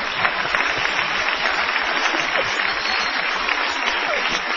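Live audience applauding: a steady, even clatter of many hands clapping.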